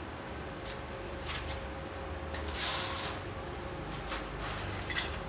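Steady low hum with a faint steady tone under it, and a few light clicks and rustles of things being handled, with a brief rustling hiss about two and a half seconds in.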